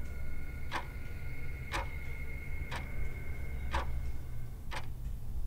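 Clock ticking once a second, evenly, over a low steady drone, with two faint high held tones that drop out about four seconds in.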